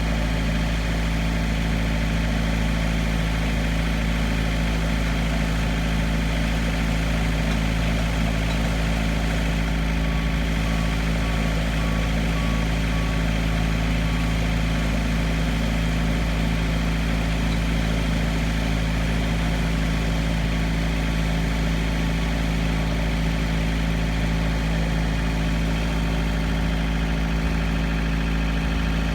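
Bulldozer's diesel engine running at a steady speed, a constant low drone with no revving.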